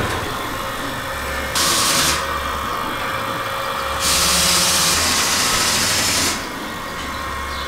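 Lely Astronaut A5 milking robot running: a steady machine hum, broken by two bursts of loud hissing, a short one about one and a half seconds in and a longer one from about four to six seconds.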